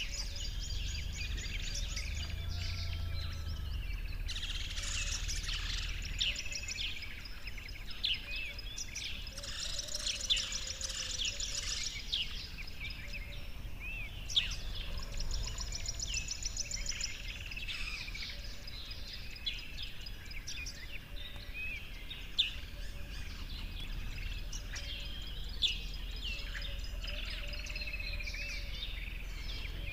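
Several songbirds singing and calling together, a mix of quick chirps, whistled notes and fast trills, over a low steady rumble.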